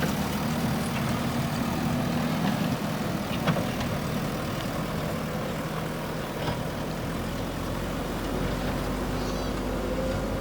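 JCB 3DX backhoe loader's diesel engine running steadily, with a couple of short knocks.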